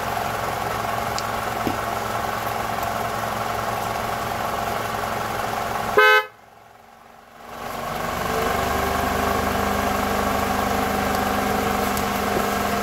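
Toyota 2AR-FE 2.5-litre four-cylinder engine idling steadily, heard from beneath the oil pan, with its rattle much reduced. About six seconds in, a brief loud beep; then the sound cuts out for a second and a half and the idle comes back with a new steady hum, as the AC load comes on.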